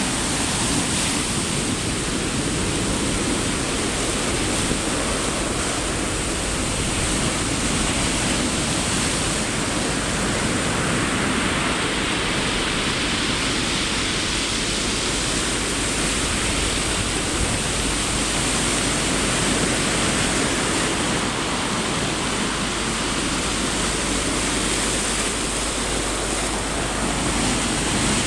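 Black Sea surf washing on the shore, a steady rushing noise that swells a little about halfway through.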